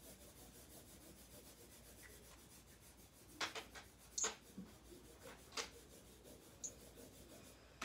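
Faint scratching of Sharpie markers drawing on bags, with a few short, sharp handling sounds in the second half.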